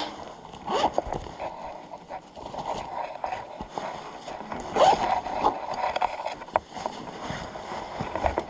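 Handling noise close to the microphone: a bag and small objects rustling and knocking irregularly as they are picked up and moved, with a louder burst of rustling about five seconds in.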